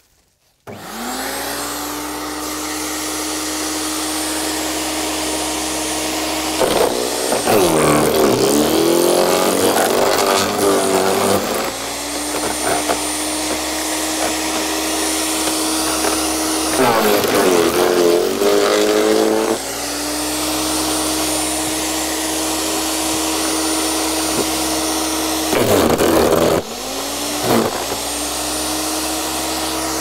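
A 2500-watt electric impact garden shredder switches on about a second in and runs with a steady motor hum. Three times, thick stems fed into it are chopped with loud crunching and cracking, and each time the motor pitch drops under the load before it recovers.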